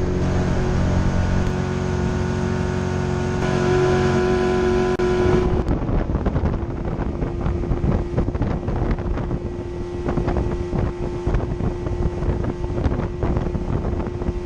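An engine running steadily. About five seconds in, wind buffeting the microphone takes over in a rough, crackling rush, with a single steady engine tone still under it.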